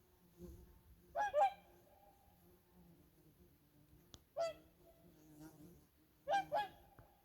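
Swans calling with short, honking, horn-like calls in three bouts: two quick calls about a second in, one near the middle, and two more near the end. A brief sharp click comes just before the middle call.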